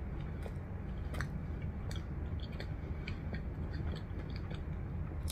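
Close-miked chewing of a mouthful of burger: small wet mouth clicks and smacks at irregular intervals, over a steady low hum.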